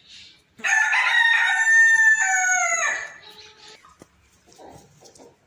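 Aseel rooster crowing once: a single cock-a-doodle-doo about two and a half seconds long, starting about half a second in and falling in pitch at the end.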